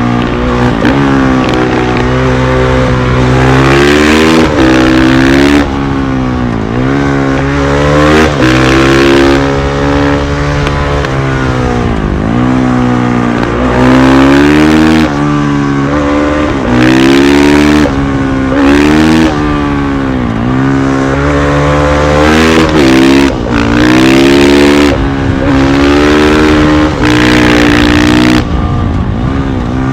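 2020 KTM 500 EXC-F supermoto's single-cylinder four-stroke engine being ridden hard: revs climb again and again with quick drops at each gear change, and the engine falls off deeply twice before pulling up again.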